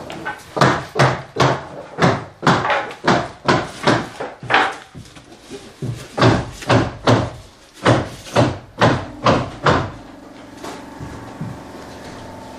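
A rapid run of knocks or thumps, about two to three a second, then from about ten seconds in a steady hum with a few held tones.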